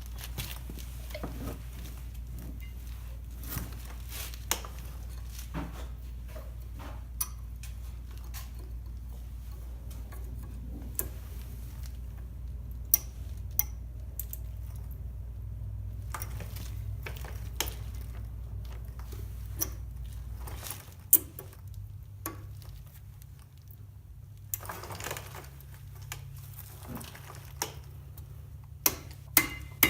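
Scattered metallic clicks and taps of new disc brake pads and their hardware being handled and seated in the caliper mounting bracket. A low steady hum underneath stops about two-thirds of the way through.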